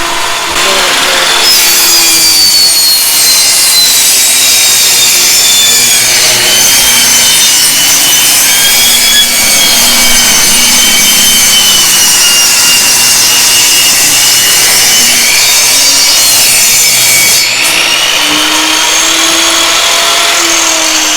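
Electric power saw running and cutting wood, a loud, steady noise with a high blade whine that sags in pitch under load, easing a little near the end.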